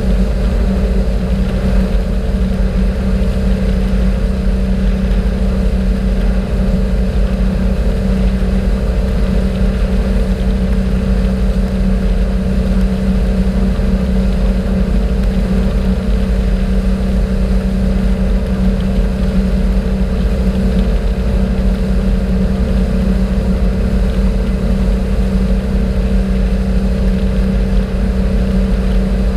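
Motorboat engine running steadily at cruising speed, a constant hum that never changes pitch, over the rush of water from the boat's wake along the hull.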